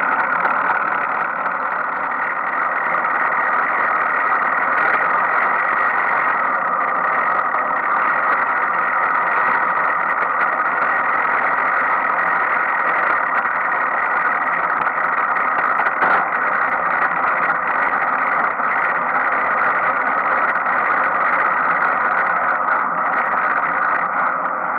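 Bicycle rear sprocket and boss-type freewheel turning, giving a steady mechanical whir that does not let up.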